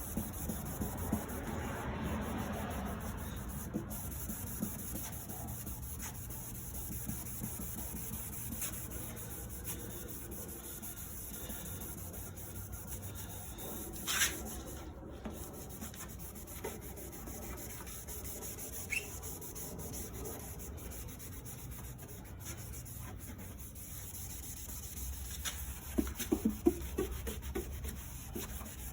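A cleaning pad scrubbing a cloudy plastic car headlight lens with a headlight cleaning solution: a steady rubbing, with a brief sharper sound about halfway through and a few knocks near the end.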